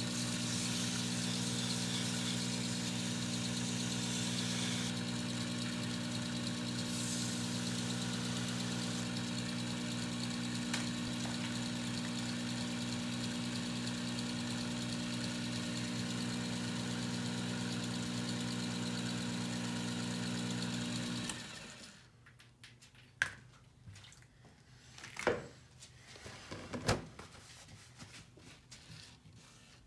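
Small cue-repair lathe running with a steady hum while a cue shaft is wet-sanded on it, with a light hiss of the sandpaper during the first few seconds. The motor shuts off about 21 seconds in, followed by a few faint knocks and handling clicks.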